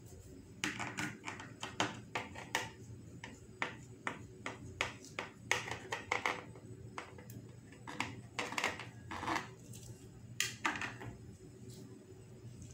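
Knife sawing through the baked crust of a soft loaf: a run of short strokes in irregular bunches, ending about a second before the end.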